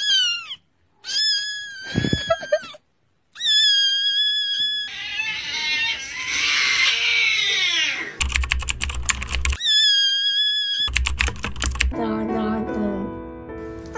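A string of spliced meme sound clips: several high, held pitched tones broken by two brief silences, a long falling swoop about six seconds in, rapid keyboard-like clicking over a low beat twice, and music near the end.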